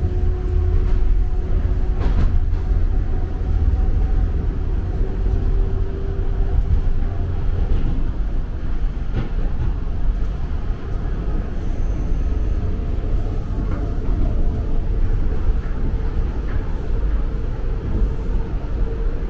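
Toronto subway train running along the track at speed, heard from inside the car: a steady low rumble with a faint hum.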